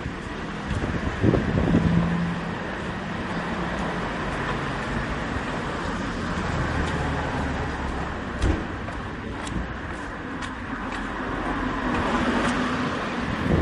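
Outdoor street ambience: a steady wash of noise with a motor vehicle going by, and a few sharp knocks.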